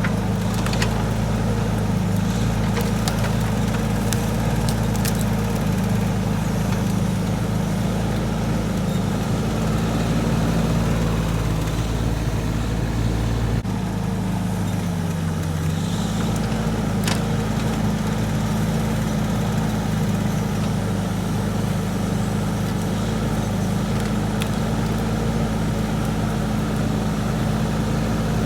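Mini excavator engine running steadily. About halfway through, its pitch sags for a few seconds and then climbs back. A few faint clicks sound over it.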